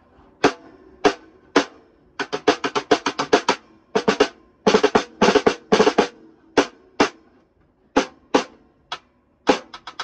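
Cross-stick (side-stick) clicks on the rim of a 14x6 mahogany snare drum, tuned fairly high, with a short ring from the shell. Three single clicks, a fast run of about eight clicks a second, quick clusters, then single clicks spaced out again.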